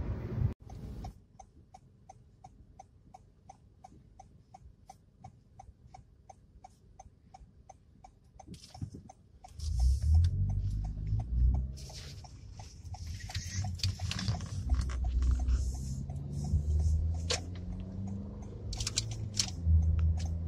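Car turn signal ticking evenly several times a second in a quiet Toyota cabin. About ten seconds in, a low engine and road rumble rises and changes pitch as the car moves off, with the ticking fading under it.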